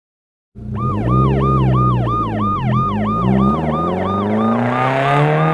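Police car siren on a fast yelp, its pitch sweeping up and down about three times a second, starting suddenly about half a second in. A car engine runs underneath, its pitch rising.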